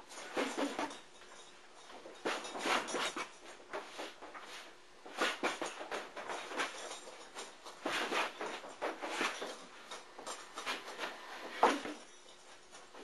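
Gloved punches landing on a hanging heavy bag in flurries of several quick blows, about five flurries with short pauses between them, the sharpest single blow near the end.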